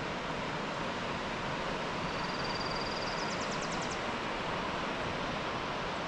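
Ocean surf: a steady wash of breaking waves. About two seconds in, a thin high whistle is held for about a second, then breaks into a quick rising run of high ticks.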